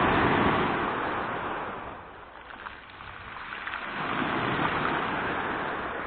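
Black Sea waves washing onto the shore in two surges, the first at the start and the second about four seconds later.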